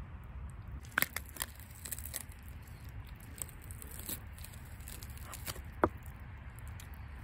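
Hands pulling the guts out of a split stone bass: wet tearing and squelching of the innards, with a few sharp clicks about a second in and a louder one near the end, over a low steady rumble.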